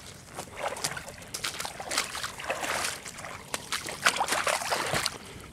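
Irregular splashing and sloshing of water, several splashes a second.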